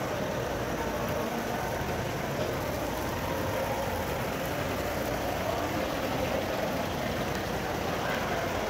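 Steady hubbub of a large, busy indoor space: many distant voices and footsteps blended into a constant din.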